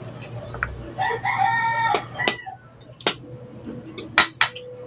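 A rooster crowing once, about a second in, a single call of about a second. Then come several sharp clicks, the loudest two close together near the end.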